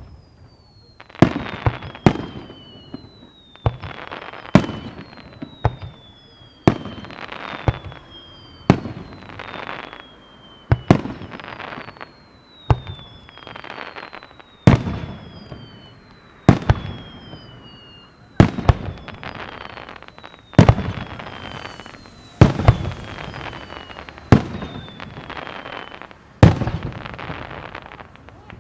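Aerial firework shells bursting, a sharp bang about every two seconds. Each bang is followed by a falling whistle and a fading rumble.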